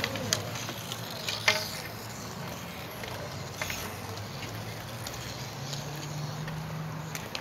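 Roller hockey play on an outdoor rink: a few short, sharp clacks of sticks and skates on the rink floor, the loudest about a second and a half in, over a steady low hum.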